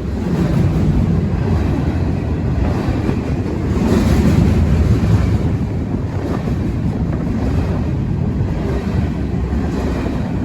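Lone EMD diesel freight locomotive passing close by, its engine and wheels making a heavy, steady low rumble that swells about four seconds in, mixed with wind buffeting the microphone. No horn sounds.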